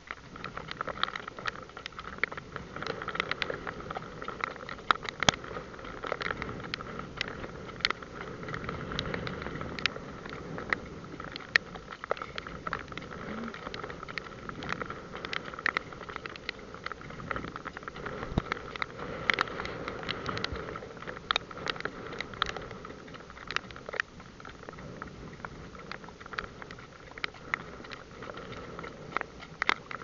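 Two trotters' hooves on a wet, puddled paved road, with sharp irregular clicks and splashes over a steady hiss.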